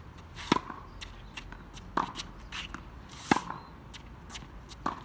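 Tennis rally on a hard court: a tennis ball struck by rackets and bouncing, four sharp pops about a second and a half apart, with lighter scuffs of footsteps between.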